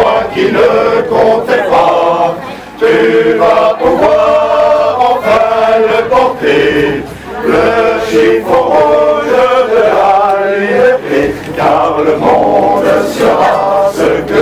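Several male voices singing together in chorus, with held notes that change every second or so.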